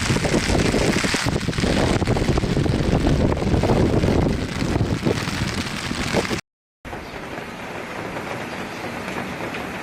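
Heavy rain and rushing floodwater with wind buffeting the microphone, loud and uneven. About six and a half seconds in it cuts out abruptly and gives way to a quieter, steady rain hiss.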